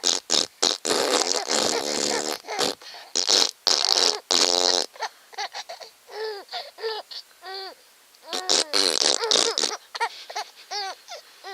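Silly fart-like sound effects, loud and buzzy in two bouts. A young child giggles between them in short, high, repeated laughs.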